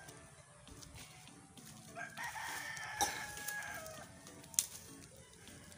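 A rooster crowing once, a long call of nearly two seconds that drops in pitch at the end. There are two sharp clicks, one during the crow and a louder one just after it.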